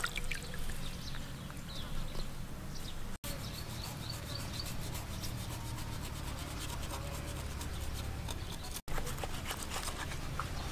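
Knife slicing and scraping raw shark flesh and skin on a wooden chopping board in repeated soft strokes, over a low steady background rumble.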